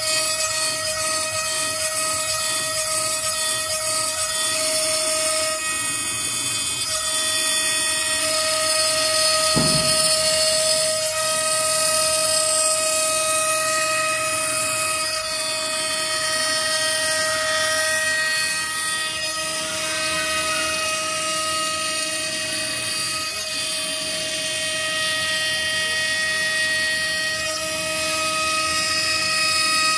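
AccTek AKG1212 CNC router spindle running at high speed with a steady whine, its small bit milling a groove in fibreboard. A short low knock about ten seconds in.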